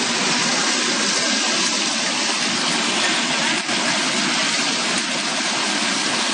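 FXC-70 vegetable washing machine running, with a steady rush of churning water in its wash tank.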